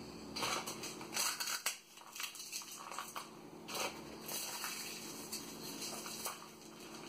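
Crisp fried puris crushed by hand onto a plastic plate, crackling and crunching in a series of short bursts as pieces break off and drop.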